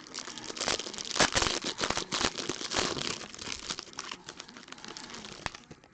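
Plastic wrapping on a Panini Spectra basketball card box crinkling and tearing as the box and its packs are opened, a dense crackle with sharp clicks that thins out near the end.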